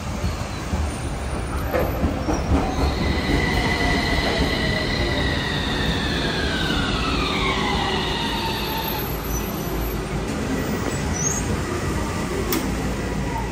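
Fukui Railway F1000 low-floor tram pulling in and braking to a stop: its motor whine slides down in pitch from about three seconds in and ends about nine seconds in, over a steady hiss of rain.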